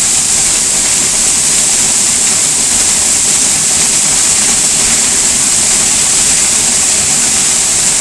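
A 104-foot waterfall in spate, heard from behind the falling curtain of water: a loud, steady rush of heavy water with no let-up.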